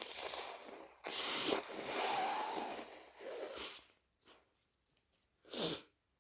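A person blowing their nose hard, in several long, noisy blows one after another, then a short nasal burst about a second and a half later.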